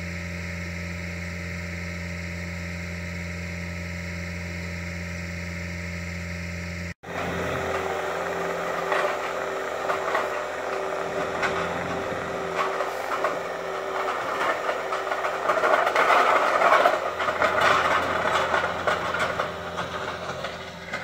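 Engine idling with a steady, even hum. After a sudden cut about seven seconds in, a louder, rougher engine-and-machinery noise takes over and grows busier near the end.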